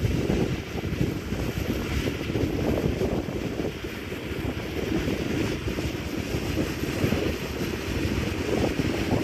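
AgXeed tracked robot tractor working under load, its diesel engine running steadily as it pulls a spading machine through the soil: an even, low machine rumble.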